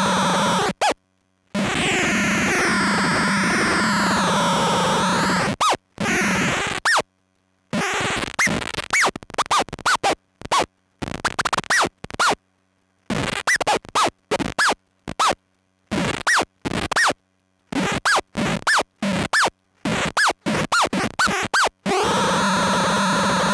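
Feedback-loop noise drone through a Gorantula sub-octave synth fuzz, a dense wavering buzz. For most of the middle it is cut on and off in rapid, irregular stutters by a Krackatone momentary switch, with short sputtering bursts and quick pitch swoops, before the steady drone returns near the end.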